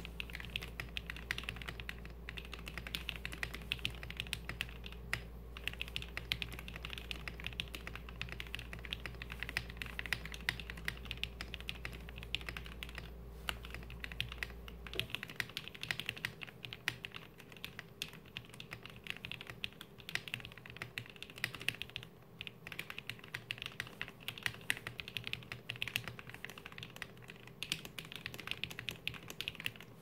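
Fast typing on a Gerald65 mechanical keyboard with an acrylic case and acrylic plate, sitting on a desk mat. The lubed linear switches (Tecsee Blue Velvet alphas, Gateron Red Ink modifiers) under Infinikey keycaps clack in a quick, continuous stream, with a few brief pauses.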